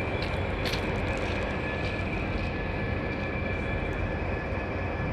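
Diesel locomotive engine running steadily, a low even hum with a constant high-pitched whine over it.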